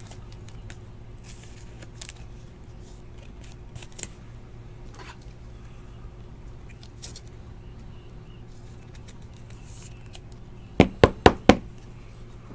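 Light rustling and small clicks of trading cards and clear plastic card holders being handled, over a steady low hum. Near the end come four quick, sharp taps in a row.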